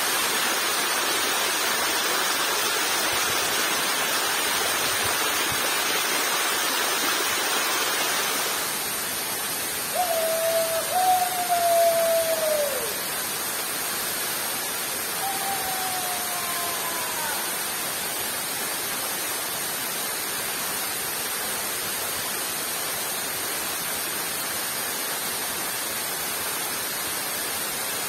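Steady rushing noise of heavy rain and a nearby waterfall, easing a little about eight seconds in. Two short whistled calls sound over it in the middle, the first longer and louder with a falling end.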